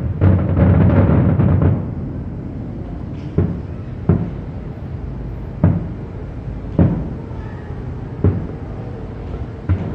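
Fireworks shells bursting: a rapid run of overlapping deep booms in the first two seconds, then single booms about every second or so, six in all.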